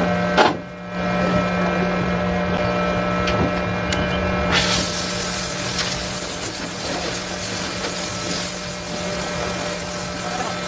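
Metalworking shop noise: a steady machine hum with a sharp click about half a second in. A little before halfway, a loud harsh hiss starts abruptly and runs on steadily.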